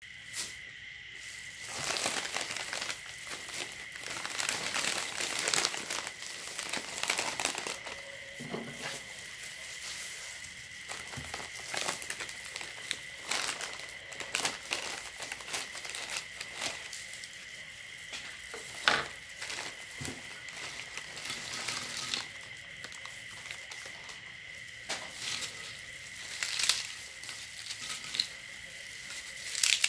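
Crinkling of a plastic snack bag handled by gloved hands, cut open with scissors and emptied, the crisp snack pieces rattling out onto a glass plate. A faint steady high-pitched whine sits underneath.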